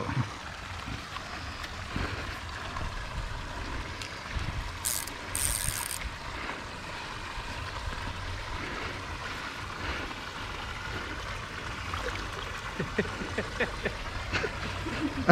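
A steady low rush of water and wind with scattered small mechanical clicks and rattles, and two short high hisses about five seconds in.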